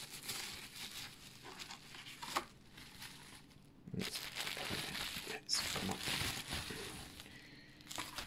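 Pink bubble wrap crinkling and rustling as it is handled and pulled open, quieter for a moment a little past three seconds in.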